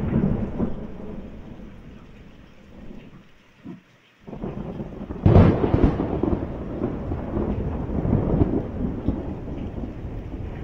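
Thunder rumbling in a rainstorm. The rumble dies away to a brief lull, then a loud, sudden peal comes about five seconds in and rolls on.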